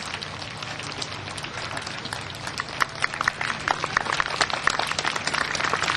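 Spectators applauding: many scattered hand claps that grow denser about halfway through.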